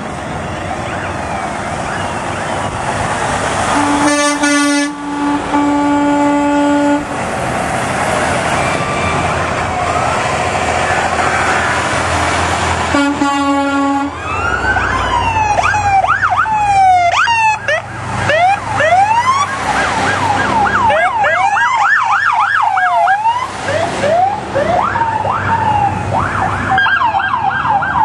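A convoy of trucks passing with engine and road noise. A truck air horn sounds a long blast about four seconds in and a short one near thirteen seconds. From about fourteen seconds, several fire truck sirens wail and yelp together, overlapping, rising and falling.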